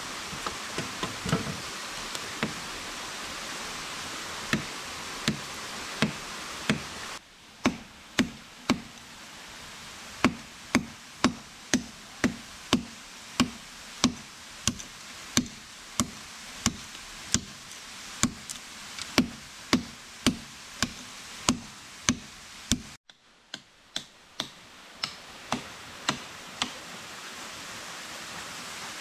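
Machete chopping into a tree trunk: sharp wooden knocks. They are scattered at first, then settle into a steady rhythm of about three strikes every two seconds.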